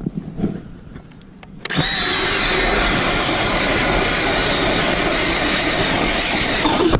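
Drill-driven ice auger boring into lake ice. It starts about two seconds in, runs steadily with a high whine for about five seconds, and stops suddenly. A few light clicks come before it.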